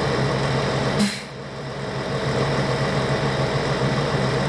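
Engine idling steadily, with a short sharp click about a second in, after which the sound briefly dips and then returns to the same steady hum.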